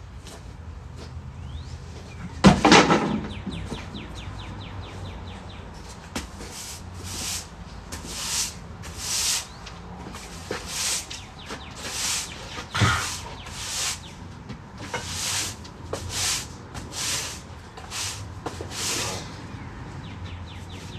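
A metal chain-link kennel gate clatters and rattles once, about two and a half seconds in. After that a stiff broom sweeps the concrete kennel floor in short, hissy strokes, about one a second.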